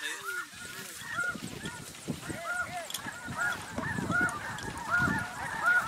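A flock of snow geese calling, many short high honks overlapping in a continuous chorus. Low rumbling gusts of wind on the microphone grow louder toward the end.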